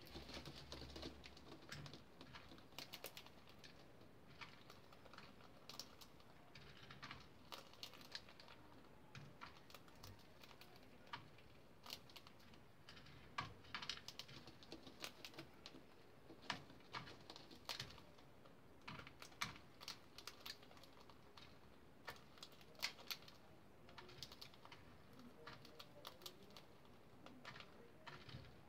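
Cockatiels feeding at a plastic seed trough: faint, irregular sharp clicks of beaks cracking and husking seeds, sometimes in quick little runs.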